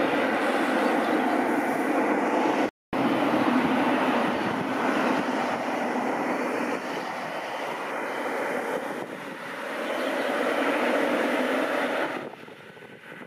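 Jet engines of a Boeing 777 freighter running at taxi power, a steady whine and rumble as it rolls past. The sound cuts out for an instant about three seconds in and falls off sharply near the end.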